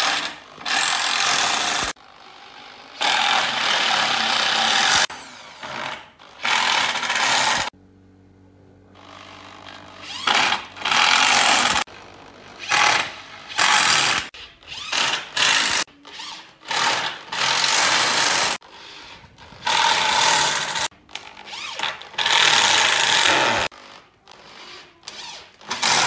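Corded electric drill driving screws into pallet-wood boards in repeated bursts of one to two seconds, with short pauses between, and a longer pause about a third of the way through.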